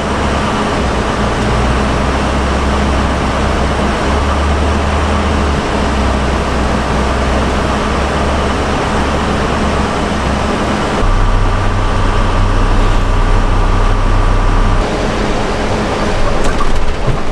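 A 2008 International BE200 school bus driving, heard from inside the cabin: a steady engine drone over road noise, the engine note stepping to a new pitch a few times. A few rattles come in near the end.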